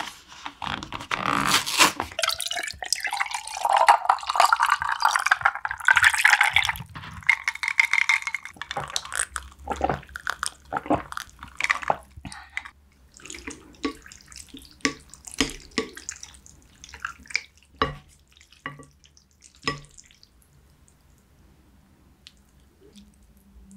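A carton of Coolpis poured over ice into a glass, the pouring note rising as the glass fills. This is followed by sharp clicks of ice and gulps as it is drunk.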